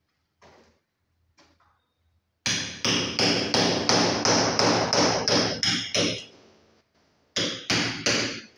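Hammer striking metal at a masonry wall in quick, ringing blows, about three a second. The blows stop about six seconds in and start again near the end, after two faint knocks at the start.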